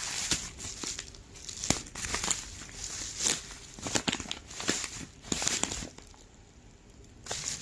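Plastic packaging crinkling and tearing as it is handled and opened by hand, in irregular crackly bursts with a quieter moment about six seconds in.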